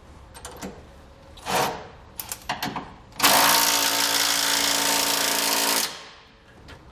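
Cordless Milwaukee Fuel impact wrench hammering a frame-rail bolt snug for about two and a half seconds, starting about three seconds in. A few light metallic clicks come before it.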